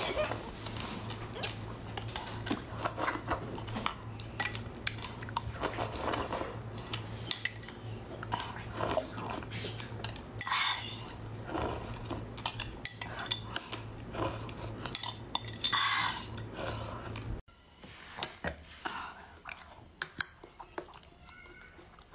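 Metal spoon clinking and scraping against a glass bowl as liquid is scooped, with short sips in between. About seventeen seconds in it cuts off suddenly, and a quieter stretch with a few light clicks follows.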